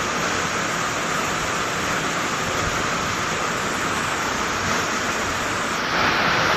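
Can body welding machine running with a steady, even mechanical noise; the sound shifts and gets a little louder near the end.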